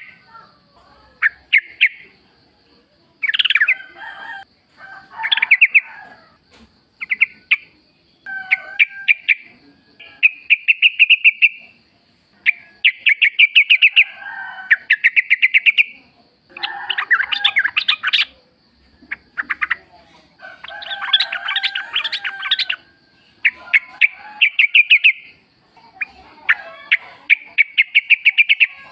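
Yellow-vented bulbuls calling: runs of quick, bubbling chattering notes, each run lasting a second or two and repeated again and again, with some lower notes mixed in. A faint steady high whine runs underneath.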